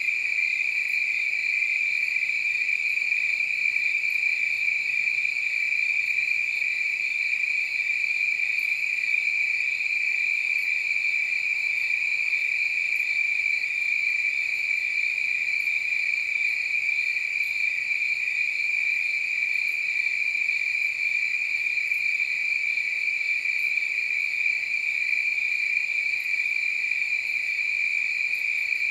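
Crickets chirping together, blending into one steady, high-pitched trill that holds the same pitch without a break.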